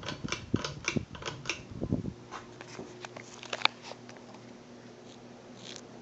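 A 1988 Encon Casanova ceiling fan running with a steady low motor hum. A run of clicks and low thumps sits over it for the first four seconds, the sharpest click a little after three and a half seconds in, then the hum goes on alone.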